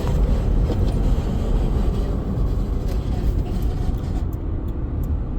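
Steady low rumble of road and engine noise inside a car's cabin.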